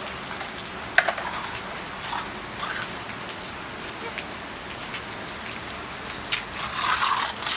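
Steady rain falling, with a sharp knock about a second in.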